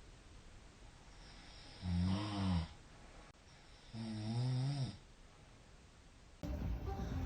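A man snoring in his sleep: two low, rattling snores, each under a second long and about two seconds apart, over a faint steady hiss. Background music starts near the end.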